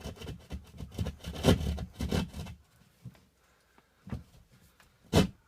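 Hand sheetrock (jab) saw cutting through drywall in short back-and-forth strokes: a quick run of strokes for about the first two and a half seconds, a pause, then a few single strokes near the end.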